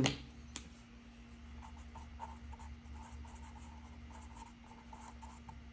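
Felt-tip pen writing on paper: a run of short, quiet scratching strokes as words are written out, starting about a second and a half in, over a faint steady hum.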